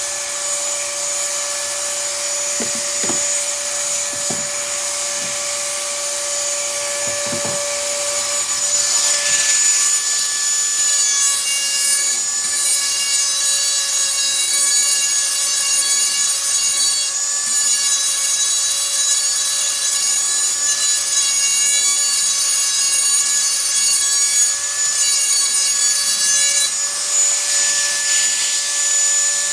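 Dremel 4000 rotary tool running at high speed with a grinding bit held against a steel garden tool's edge to sharpen it. It makes a steady high whine over a scraping grind, with a few light knocks in the first several seconds.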